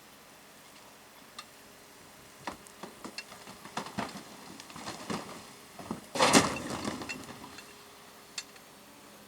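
Irregular knocks and clatter, with a louder, longer clattering burst about six seconds in.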